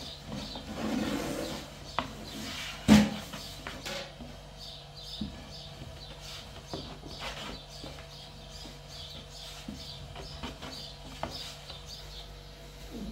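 Long thin wooden rolling pin working flatbread dough on a round wooden board: scattered light knocks and clicks of wood on wood, with one loud thump about three seconds in.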